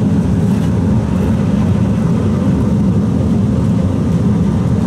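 Steady low roar of a machine running, unchanged throughout.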